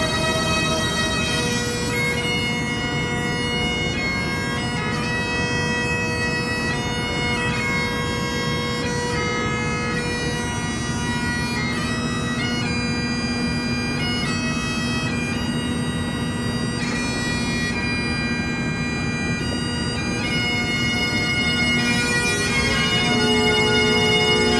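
Bagpipe music: a steady drone held under a melody of changing notes.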